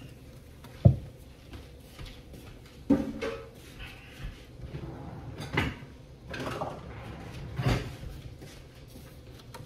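Scattered kitchen handling knocks and clunks, like drawers and cupboards being opened and shut: one sharp knock about a second in, then three softer clunks spread over the rest.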